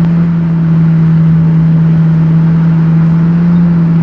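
An engine running steadily: a constant low hum with a rumble beneath it, not changing in pitch or level.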